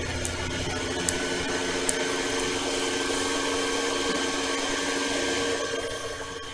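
A steady motor hum with a few held tones over a whirring hiss, swelling at the start and fading near the end.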